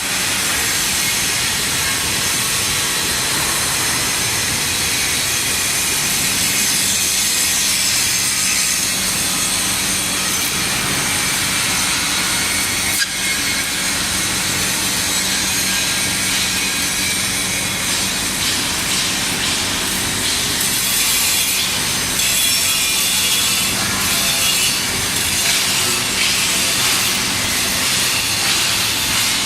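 TIG welding arc from an Omega 350T welder: a steady rasping hiss with a faint low hum underneath, broken by one sharp click about 13 seconds in.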